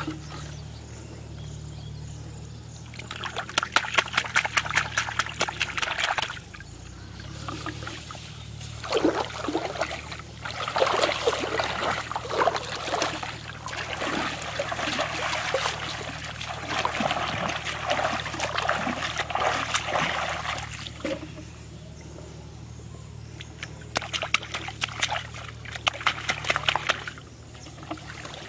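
Shallow floodwater splashing and sloshing as a person wades and churns it by hand. The water comes in bursts of rapid splashes, with quieter trickling in between.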